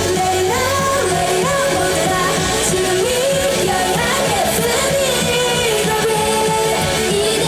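Live pop song played loud through a concert PA: a sung melody over a full amplified band mix.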